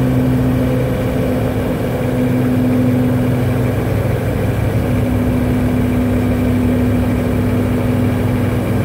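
The cab-interior drone of a 1998 Hummer H1's turbodiesel V8 cruising at about 50 mph and 1,600 rpm, a steady hum with road noise. The truck has a surging fault that has just set an overboost code.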